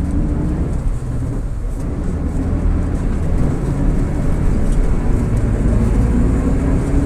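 VolksBus 17-230 OD city bus under way, its MAN D08 4.6-litre diesel running with the differential droning loudly. The drone is a steady pitched note over the engine and road noise, strongest near the start and again near the end.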